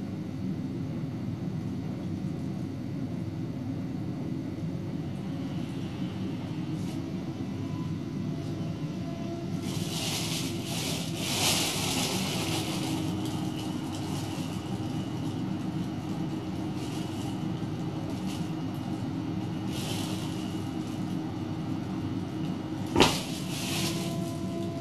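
An 80 mm PC fan with a 3D-printed static-pressure boost adapter running steadily, blowing air into a large plastic bag. The plastic rustles about ten to thirteen seconds in and again around twenty seconds as the bag fills and is handled. A sharp click comes near the end.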